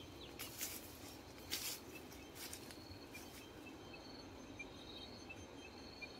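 Faint rural outdoor ambience: a few soft rustles in the first couple of seconds, then quiet, short high chirps repeating about once or twice a second.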